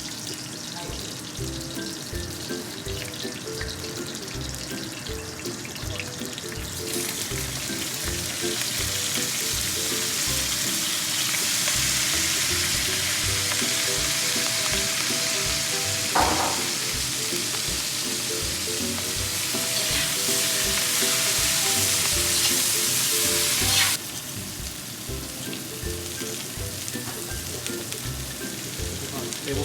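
Scallions, red chilies and Sichuan peppercorns sizzling in hot oil in a wok as they are stir-fried. The sizzle swells louder several seconds in, there is a single knock midway, and the sizzle drops off suddenly well before the end. Background music plays under it.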